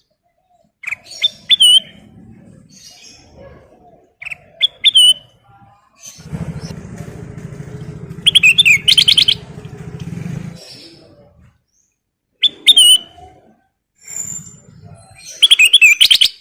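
Kutilang emas (a bulbul) singing in short, loud whistled phrases with pauses between them, one phrase running into a fast trill about halfway through.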